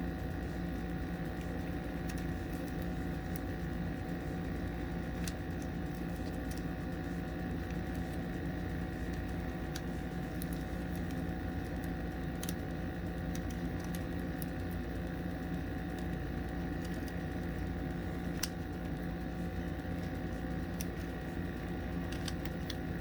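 Small sharp clicks every few seconds as .22 LR cartridges are pressed one at a time into a Taurus TX22 pistol magazine by hand, over a steady low hum.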